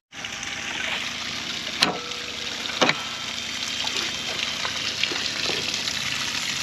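Water sloshing and splashing, with two sharp knocks about two and three seconds in.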